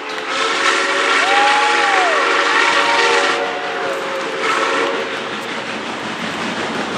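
Whistle of Santa Fe 4-8-4 steam locomotive 3751 blowing a long chord for about four seconds, with a higher note that rises, holds and falls twice over it, then a short blast about a second later.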